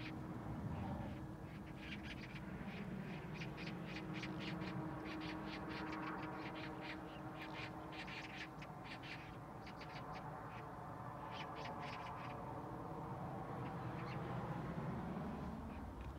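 Birds calling in runs of rapid, harsh short notes, several bouts one after another, over a low steady hum.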